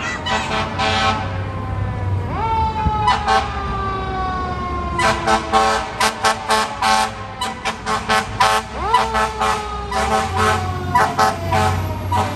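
Fire rescue truck's siren winds up sharply and slowly falls away twice, about two seconds in and again near nine seconds. Rapid, repeated short air horn blasts run over it, with the truck's engine rumbling underneath.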